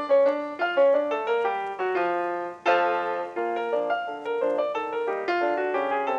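Background piano music: a light tune of quick single notes, with a fuller chord struck a little before halfway through.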